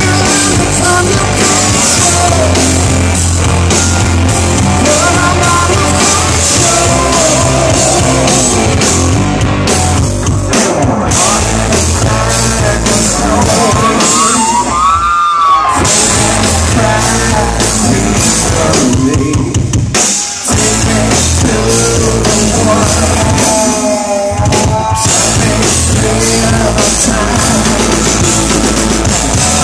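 Rock trio playing live: drum kit, bass and electric guitar, with singing, loud and continuous.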